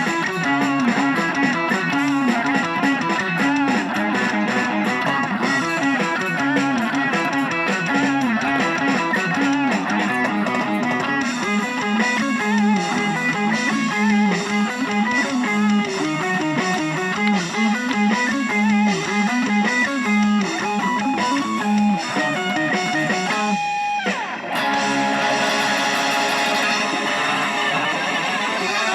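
Instrumental band music led by guitars, with electric guitar over bass and strummed chords and no singing. About 24 seconds in there is a short break, after which the music picks up again, brighter.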